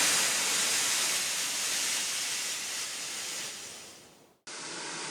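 Steam locomotive letting off steam: a hiss that slowly fades away over about four seconds, then a second, fainter steady hiss cuts in suddenly near the end.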